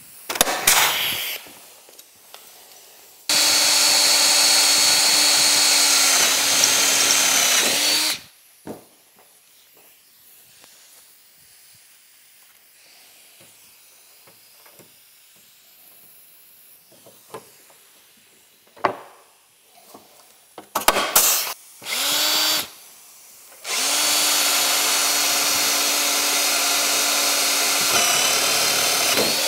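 Cordless drill boring rivet holes through a plastic ski skin and the ski beneath it. It runs in two long steady spells of about five seconds each, with a few short bursts before and between them.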